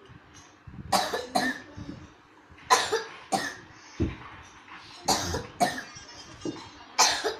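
A man coughing hard and harshly, with about seven coughs coming in short bouts of two: a severe, hacking cough.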